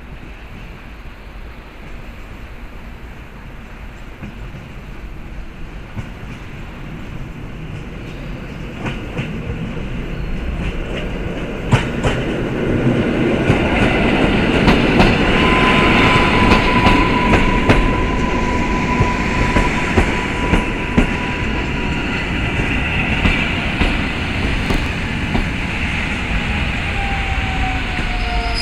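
Two coupled EN57AKM electric multiple units pulling into the platform. The running noise grows louder as the train approaches and passes, with wheels clicking over rail joints. A steady high squeal from the slowing train runs for several seconds midway.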